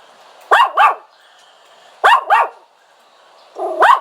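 A dog yelping: short, high, pitched calls in quick pairs, three bursts about a second and a half apart, the last one a little longer.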